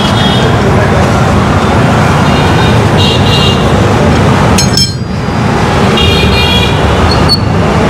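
Steady road traffic with several short vehicle horn honks, and a sharp clink about halfway through.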